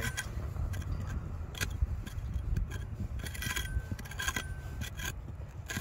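Metal hand tool scraping and tapping against rock with a dozen or so sharp clinks, some ringing briefly, as a nodule is pried loose from weathered basalt, over a steady low rumble.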